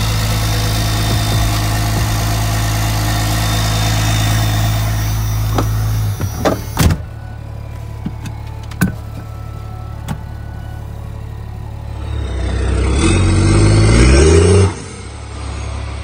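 1993 Dodge W250's 5.9-litre 12-valve Cummins inline-six diesel running at a steady idle, stopping abruptly about six seconds in. A few sharp knocks follow, and near the end a sound rises in pitch for about two seconds before cutting off.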